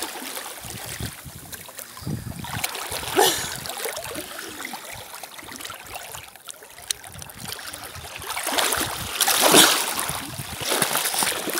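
Sea water sloshing and splashing around a person moving chest-deep in shallow water, with two louder swells of splashing, a few seconds in and again near the end.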